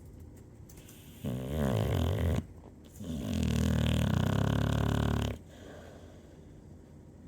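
Loud snoring: two rattling snores, a short one starting just over a second in and a longer one from about three seconds to just past five.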